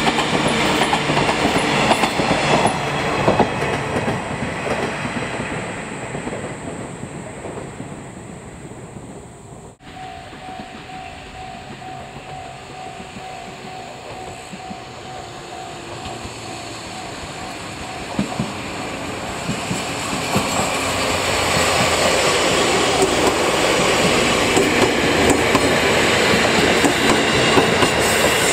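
Sangi Railway electric commuter train receding, its wheel and rail noise fading away. After a cut, a second electric train approaches, its noise building steadily until it passes close by near the end.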